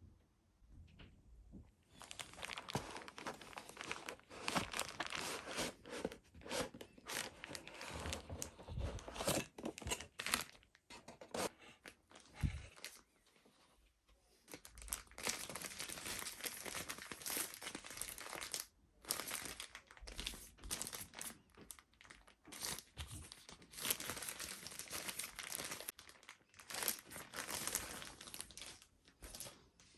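Product packaging being torn open and crinkled by hand, in irregular crackling stretches with a short pause partway through.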